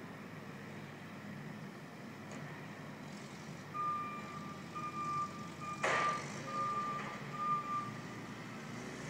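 A vehicle's reversing alarm beeping five times, about a second apart, with a single sharp bang midway through the beeps, over a steady low rumble.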